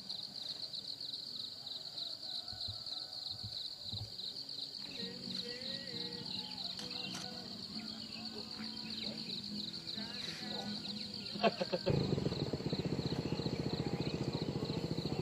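Insects chirping, a steady high pulsing trill. About twelve seconds in, a louder low, fast rattling sound starts and keeps going.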